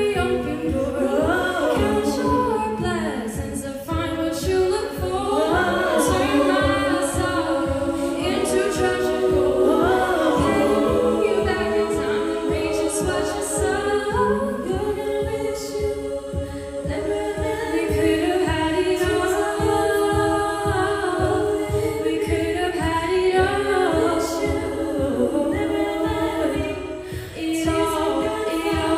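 Treble-voiced a cappella group singing a pop arrangement in several parts, with a lead voice over sustained backing harmonies and a beatboxer keeping a steady beat.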